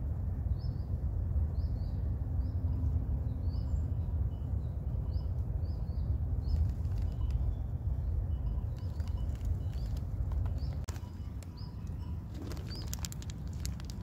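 Wind rumbling on the microphone with a low, steady buffeting, while a small bird chirps over and over, a short high note every half second or so, pausing briefly past the middle.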